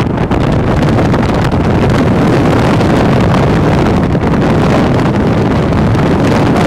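Steady, loud wind rush on the microphone, mixed with road and engine noise from a car travelling at speed.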